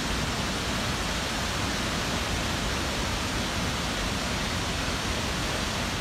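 Keng Tawng Waterfall, a high waterfall falling in several strands into a pool, giving a steady, unbroken rush of falling water.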